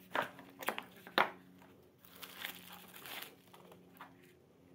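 Unboxing handling: crinkling plastic mailer and cardboard packaging, with a few sharp clicks and taps in the first second or so, then softer rustling that dies away in the second half.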